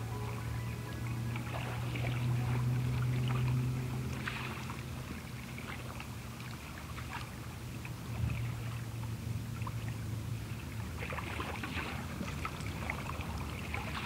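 Recorded ocean water lapping and sloshing in small, irregular splashes, over a low steady hum that fades out about five seconds in and briefly returns.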